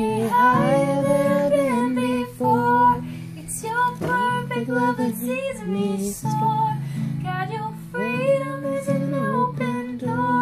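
A woman singing with her own strummed acoustic guitar: long held sung notes in phrases over steady chords.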